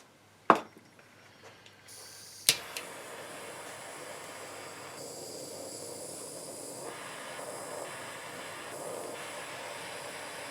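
Jeweller's soldering torch. A sharp click, then gas starts hissing and lights with a sharp pop about two and a half seconds in, and the flame hisses steadily, heating a silver bezel to flow hard solder onto its base plate.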